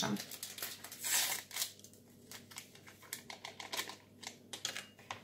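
Paper baking powder sachet crinkling as it is opened and shaken out over a bowl: a run of small, irregular crackles, thickest about a second in.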